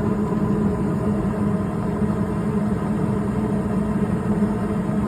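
Goodman two-stage gas furnace running on low stage: a steady hum from the draft inducer motor and burners.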